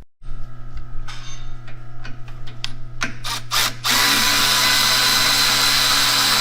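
Power drill running over a steady low hum: a few short trigger bursts about three seconds in, then a loud, steady run from about four seconds in.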